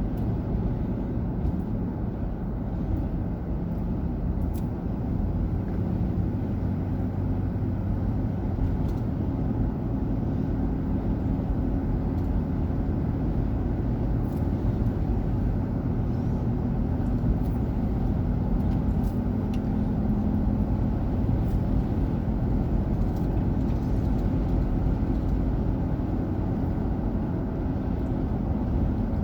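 Car driving along a road: steady low road and engine rumble heard from inside the car.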